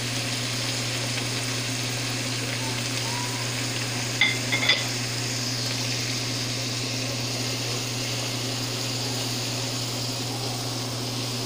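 Chopped onion and garlic paste sizzling in hot oil in a pan while being stirred with a silicone spatula, a steady frying hiss. A few short clicks come about four and a half seconds in.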